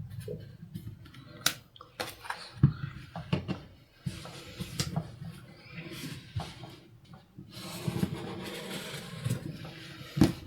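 Handling noise from a ruler and marker on a tabletop while lines are drawn across cotton batting: scattered taps and knocks, with a longer stretch of scratchy rustling about eight seconds in.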